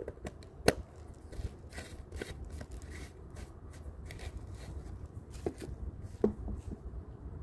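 Scattered sharp clicks and light taps over a low rumble of wind on the microphone; the loudest click comes about a second in, and another near the end.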